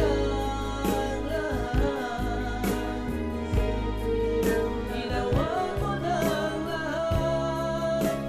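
Old Filipino song playing: a singer's melody over an instrumental backing with bass and a steady drum beat.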